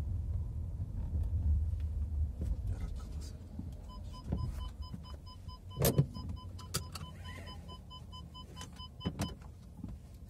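Car interior: a low rumble fading out, a few clicks and knocks, and a rapid electronic beeping for about five seconds from just before the middle, like a car's warning chime.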